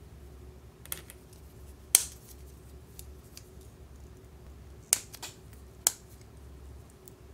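Small hard-plastic parts of a miniature kitchen kit being snapped off their plastic runner: a few sharp, separate clicks, the loudest about two seconds in and a cluster near the fifth and sixth seconds.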